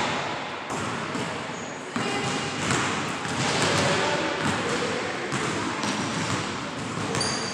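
A basketball bouncing and being dribbled on a hardwood gym floor, a series of short thuds ringing in the large hall.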